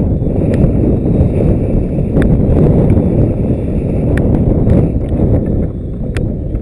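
Wind buffeting the microphone, a loud steady rumble, with a few faint sharp clicks scattered through it.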